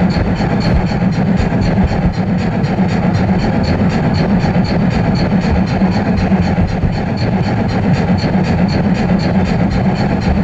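O-gauge model steam train running along the track, heard close up from on board: a steady rolling hum of wheels and drive with a light regular ticking about two to three times a second.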